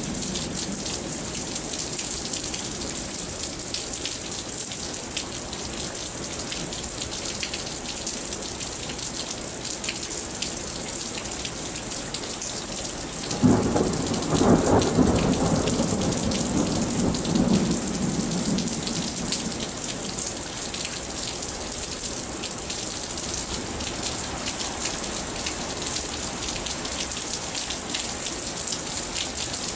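Steady rain falling, with a sudden clap of thunder about halfway through that rumbles on for about four seconds before sinking back under the rain.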